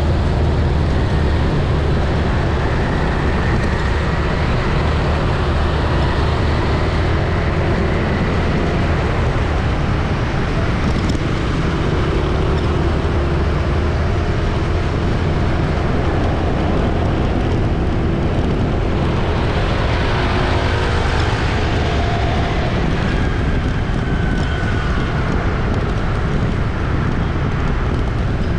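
Busy city street traffic: a steady din of engines and tyres, with a vehicle passing close and louder about two-thirds of the way through.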